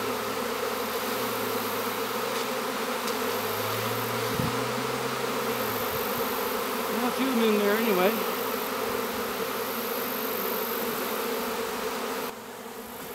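A swarm of honeybees in flight buzzing as a dense, steady drone. About seven seconds in, a louder wavering tone rises over it for a second or so. The drone drops in level near the end.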